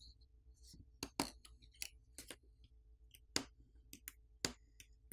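Faint, sharp clicks and taps of a plastic pry pick working inside a Samsung Galaxy S21, unclipping the millimetre-wave 5G antenna cable connectors from their board sockets. There are about ten separate clicks, the loudest about a second in, near the middle and at the very end, over a faint steady hum.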